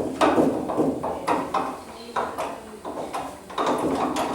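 Irregular metal clicks and knocks as small screws are fitted into a steel TV wall-mount bracket.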